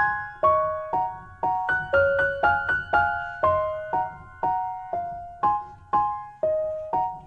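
Background music: a gentle piano playing a slow melody, about two notes a second, each note struck and fading away.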